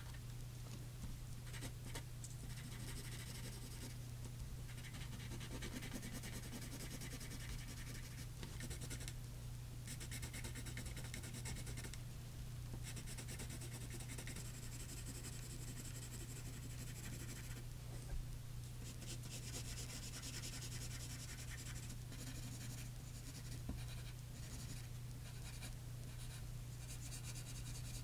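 Pencil scratching on drawing paper in many short, repeated shading strokes, over a steady low hum.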